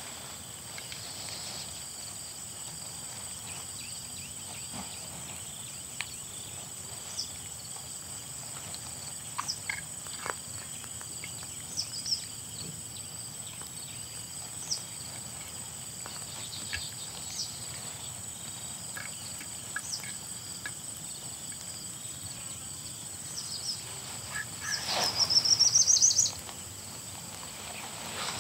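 Steady high-pitched insect drone outdoors, with scattered small clicks from handling skewers and lizards. About 25 seconds in comes a loud burst of rapid chirps that rise in pitch and last under two seconds.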